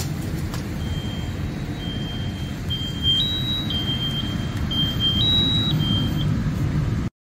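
Fireground noise: a steady low rumble with an electronic beeping that starts about a second in and steps between a lower and a higher tone. Everything cuts off abruptly near the end.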